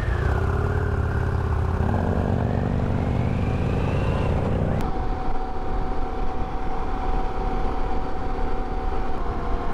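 Harley-Davidson Pan America's 1250 cc V-twin engine pulling away from a stop, its pitch rising as it accelerates. After an abrupt cut about five seconds in, it runs steadily at cruising speed.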